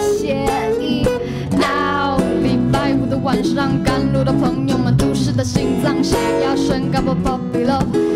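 A band playing a song live: guitars and drums keep a steady beat under a wavering melody line.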